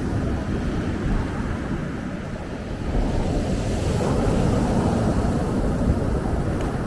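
Ocean surf breaking and washing up a beach: a continuous rushing that swells louder about three seconds in.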